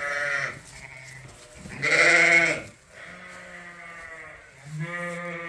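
Sheep bleating: three bleats, the loudest about two seconds in.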